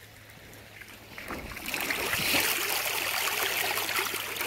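Water splashing and swishing as a hand rinses a stone arrowhead in shallow water, starting about a second in and continuing in irregular small splashes.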